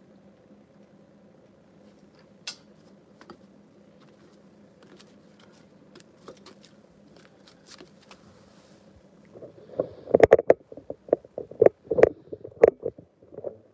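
Faint steady background hum with a few scattered light ticks, then from about ten seconds in a run of loud irregular knocks and rubbing on the microphone as the recording phone is handled and moved.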